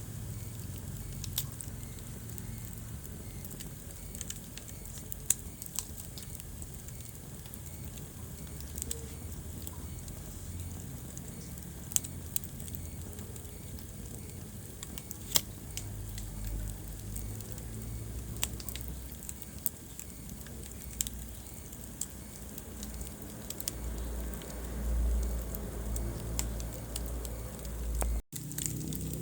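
Wood fire crackling in a fireplace, with irregular sharp pops, a few of them loud, over a low rumble of the flames. The sound cuts out for an instant near the end.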